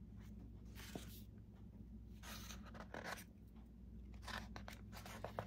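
Faint rustling of a picture book's paper pages being handled and turned, with a few soft clicks and flaps near the end.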